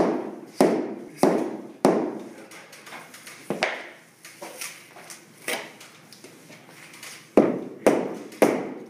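Hammer blows on hardwood flooring: sharp knocks, four evenly spaced about half a second apart, a few scattered ones, then three in quick succession near the end.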